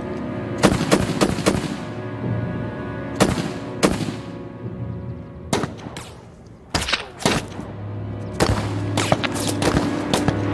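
Gunshots in a street firefight, each ringing briefly: a quick group of three at the start, scattered single shots through the middle, and a denser run near the end. They sound over a film score of held low notes.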